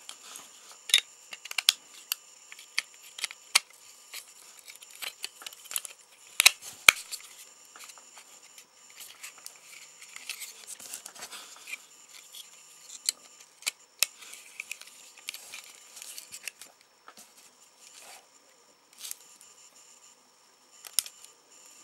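Irregular small clicks, taps and scrapes of a Nokia 1100 mobile phone's metal frame and plastic housing being handled and pressed together by hand during reassembly, with a few sharper clicks about six and a half seconds in.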